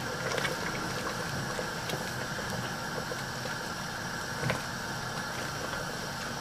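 Wooden spoon stirring lentil soup in a stainless steel pot, with a few light knocks and one louder knock about four and a half seconds in, over a steady low hum.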